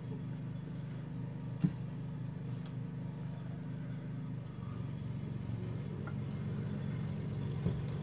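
Lawn mower engine running steadily, its note shifting slightly about halfway through. A sharp click sounds once, about a second and a half in, and a softer one near the end.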